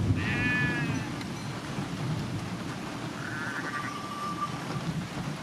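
Rolling thunder rumbling low and fading away, with steady rain in the background. A short, high animal call, like a bleat, sounds about a quarter second in and again about three seconds in.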